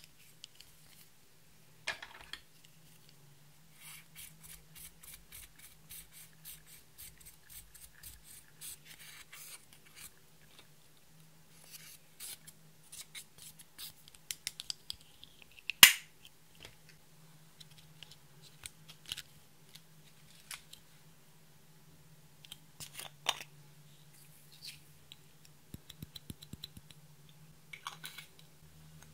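A plastic spatula scrapes pressed eyeshadow out of its small plastic case in quick, rhythmic scratching strokes, with the crunch of the powder breaking up. Scattered clicks and taps of the plastic case run through it, and one sharp click about sixteen seconds in is the loudest sound.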